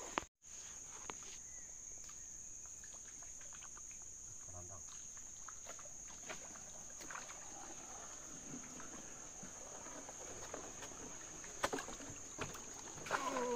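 Steady high-pitched drone of forest insects, with faint scattered knocks and splashes from a wooden canoe being paddled.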